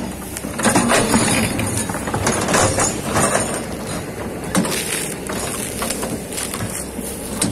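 Kobelco hydraulic excavator at work: its diesel engine running steadily under repeated clanks and scraping as it digs.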